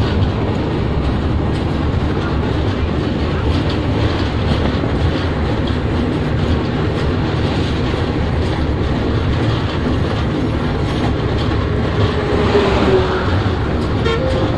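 Chitra Express intercity passenger train running steadily at speed, a continuous rumble of wheels on rails heard from an open coach window.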